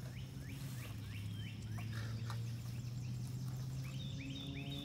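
Many short, rising chirps from small animals calling outdoors, several a second and overlapping, thickest near the start and again near the end, over a steady low hum.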